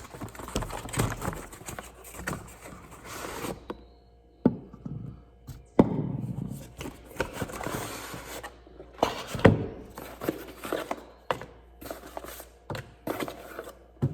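Product packaging being opened and a foam cannon unpacked by hand: rustling with many sharp knocks and taps, two louder knocks about six and nine and a half seconds in.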